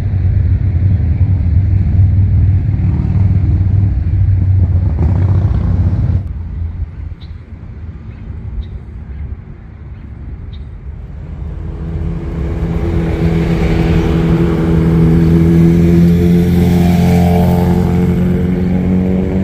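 Motorcycle engine running with a deep, loud note. It changes and drops quieter about six seconds in. From about eleven seconds a steadier, higher engine note builds and holds loud before easing near the end.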